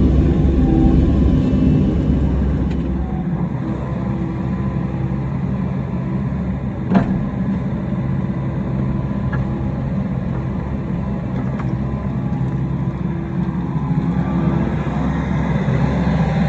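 Excavator's diesel engine running steadily while digging, with a single sharp knock about seven seconds in.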